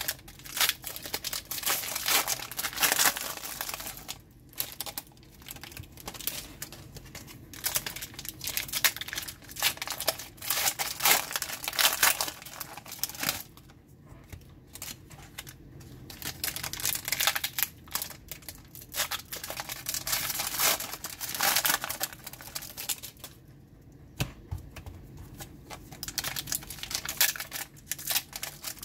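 Foil wrappers of trading-card packs crinkling and tearing open, with cards being flipped through by hand, in irregular bursts with a few short lulls.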